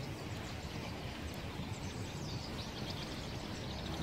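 Outdoor ambience: a steady low background rumble, with faint high bird chirps scattered through the second half.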